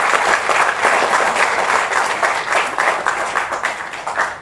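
Audience applauding: dense, steady clapping from many hands that thins out and fades near the end.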